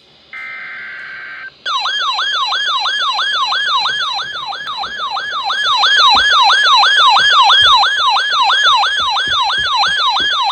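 A short steady beep, then an electronic siren in a fast yelp pattern, its pitch sweeping up and down about three times a second.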